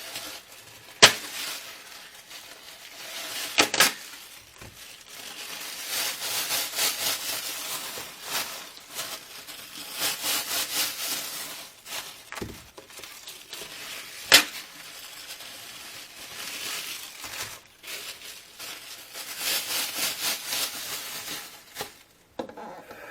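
Kitchen food preparation: a few sharp knocks and clinks, between stretches of rapid scraping strokes.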